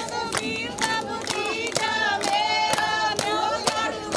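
Women singing Punjabi boliyan together in a high chorus, with steady hand-clapping in time, about two claps a second.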